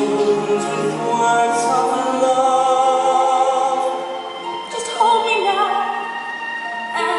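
A slow musical-theatre ballad sung in an operatic style with orchestral accompaniment. The voice holds long notes with vibrato.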